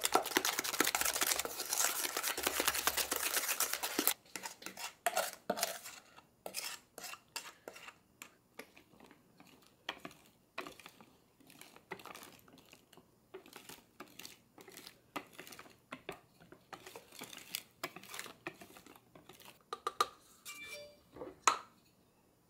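Batter being mixed in a mixing bowl. For about four seconds a utensil scrapes quickly and continuously around the bowl. Then a hand whisk works in slower, separate strokes, folding the yolk mixture into the meringue, with a couple of light clinks against the bowl near the end.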